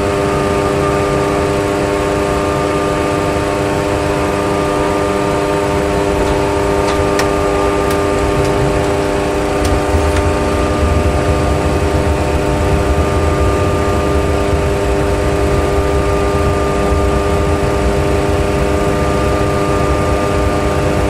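Simulated jet engine sound in a Boeing 737 Classic full flight simulator: a steady whine with several held tones over a low rumble. About ten seconds in, the rumble gets louder as the jet rolls out on the runway after an autoland touchdown, with the thrust reversers deployed.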